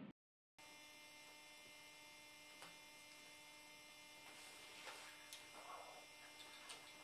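Near silence: room tone with a steady electrical hum, with a few faint clicks.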